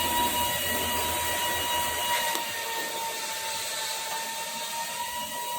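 Machine tool motor running with a steady high whine over a noisy hiss; a low hum underneath drops away about two seconds in.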